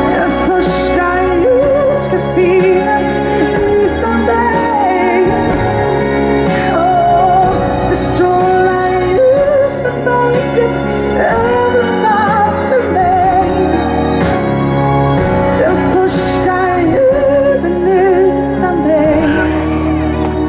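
A woman singing live into a handheld microphone over instrumental accompaniment, her held notes wavering with vibrato.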